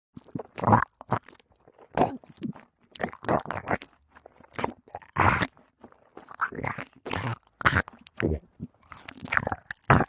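Cartoon fight sound effects: a string of short, crunchy hits and smacks, one after another with brief silences between them.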